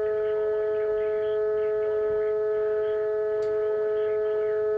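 A steady electronic alert tone: two held pitches sounding together with overtones, unchanging and loud, as a warning tone received on a radio.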